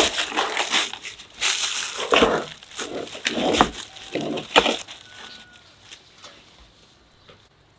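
Aluminium foil crinkling and rustling in irregular bursts as hands press and tuck it down over a roasting tray, stopping about five seconds in.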